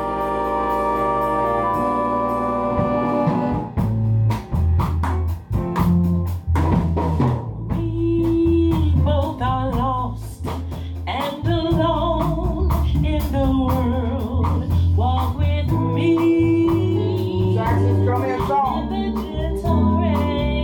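Live band playing a bossa nova: a held chord for the first few seconds, then a woman singing into a microphone over drums and bass with a steady beat.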